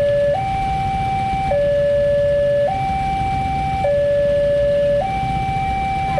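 Electronic railway level-crossing alarm alternating between a higher and a lower tone, each held about a second, warning that a train is approaching.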